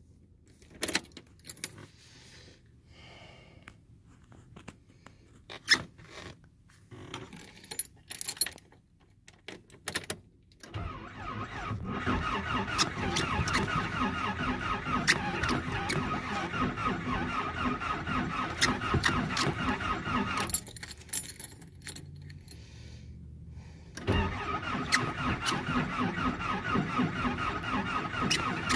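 Nissan 720 pickup's engine cranking on the starter without catching in a failed cold start, heard from inside the cab: a crank of about ten seconds, a pause of a few seconds, then a second crank near the end. Before the first crank there are only scattered clicks and rattles, like keys jingling at the ignition.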